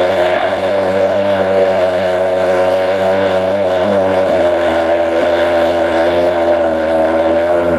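A long, drawn-out monster roar made from layered dinosaur and animal sound effects: one steady, pitched bellow that shifts slightly about halfway through.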